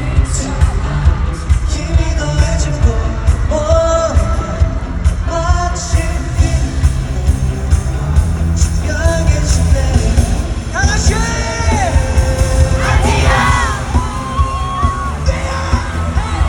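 Live K-pop boy-group performance: male voices singing over a loud backing track with a heavy, steady bass beat, with fans yelling and cheering.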